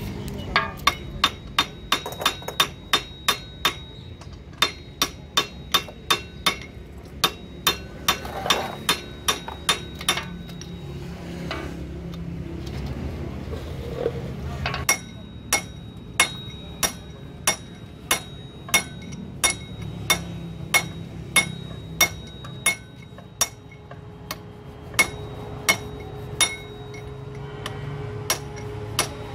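Hand hammer striking metal in a steady series of sharp, ringing blows, about two to three a second, with a short pause about halfway through.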